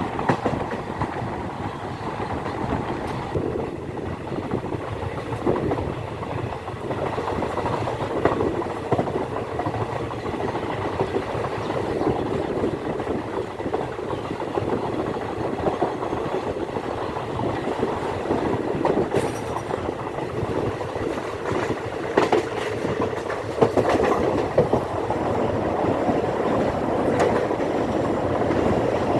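Indian Railways intercity superfast express running along the track: a steady rumble of the coaches with wheels clicking over rail joints, and a few sharper clanks in the second half.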